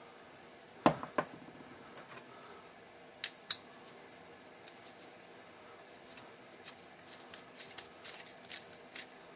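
Sharp clicks and light taps of small metal parts being handled as pins are worked out of the indexer's plate. There is a loud click about a second in, two more at about three and a half seconds, then a scatter of quieter ticks.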